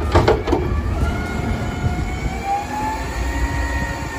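Front-loader garbage truck lifting a container overhead: the engine revs and the hydraulic whine rises and then holds steady over a low engine rumble, with a few metal clanks near the start.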